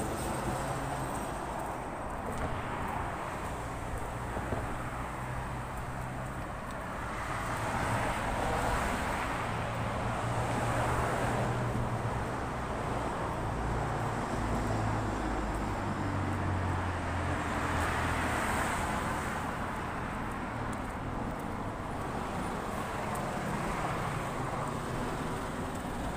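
Road traffic on a wide multi-lane street: cars passing one after another, their tyre and engine noise swelling and fading every few seconds over a low rumble.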